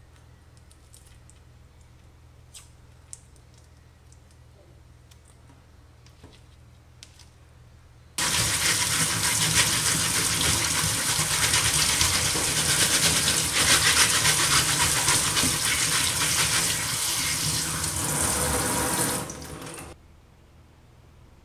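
Kitchen tap running onto shrimp in a mesh strainer in a stainless steel sink. The water comes on suddenly about eight seconds in, rushes steadily, and is shut off about eleven seconds later. Before it there are only a few faint clicks.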